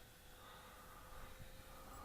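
Near silence, with the faint steady whine of the Freewing F-5 RC jet's electric ducted fan flying far off.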